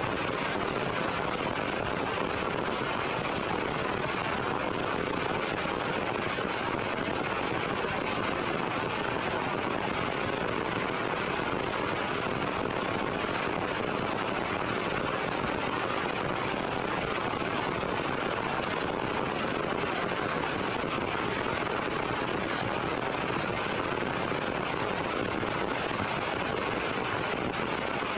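Heavy rain falling steadily on forest leaves, an even, unbroken hiss.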